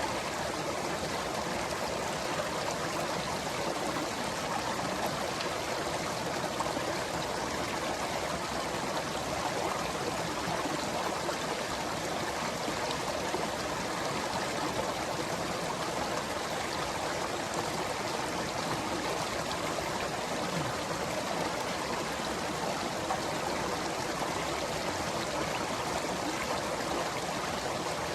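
Steady rush of flowing water, like a forest stream, running evenly without a break.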